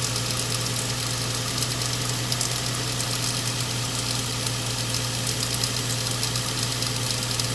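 2008 Nissan Xterra's 4.0-litre V6 running steadily at idle with a rapid ticking on top: the unexplained noise the owner is asking about.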